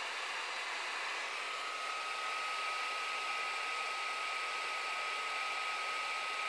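Clevo P170EM gaming laptop's cooling fans running flat out, a steady rushing hiss, with the Core i7-3720QM at full load and about 90 °C under a Prime95 stress test. About a second and a half in, a steady high whine joins the fan noise and holds.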